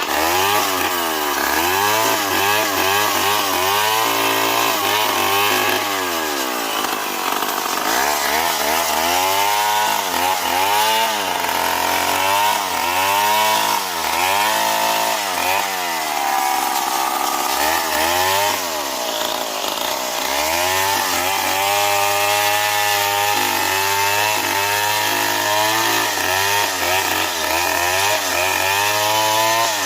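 STIHL MS 070 two-stroke chainsaw running loud and steady, its engine pitch rising and falling over and over as the throttle is worked and the chain cuts through wood.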